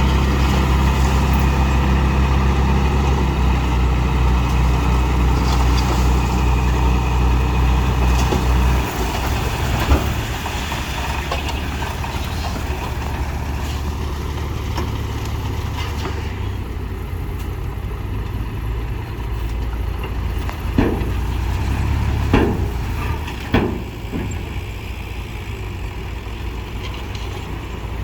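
Bulldozer's diesel engine running steadily, its low hum dropping a little in level about nine seconds in. Three short sharp sounds come about two-thirds of the way through.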